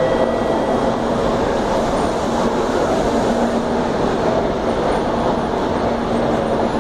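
Shinkansen bullet train pulling slowly into a station platform: a steady, even running noise with faint humming tones.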